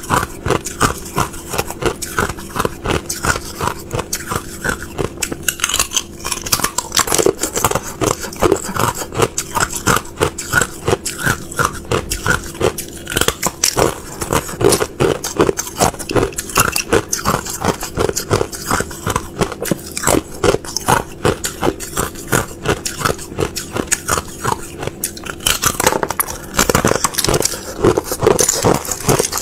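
Thin sheets of clear ice being bitten and chewed, a dense, continuous run of crisp cracks and crunches.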